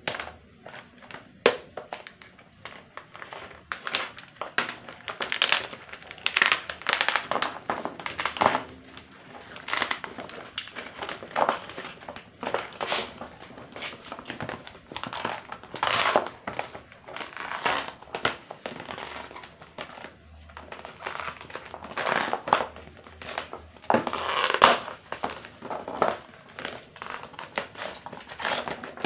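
Thin sheets of dried hide glue being peeled and worked loose from plastic trays: irregular crinkling and crackling as the stiff glue film flexes and lifts off the plastic.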